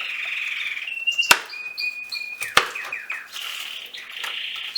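A knife chopping garlic on a cutting board: two sharp chops about a second and a half apart. Under them runs a steady high chirping trill.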